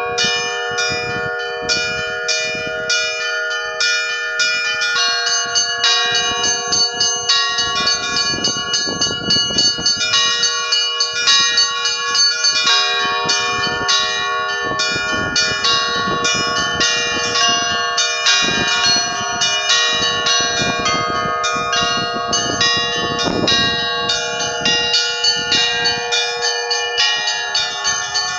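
Russian Orthodox church bells rung in the traditional zvon style. Quick repeated strikes, several a second, ring over the sustained hum of larger bells in a continuous peal.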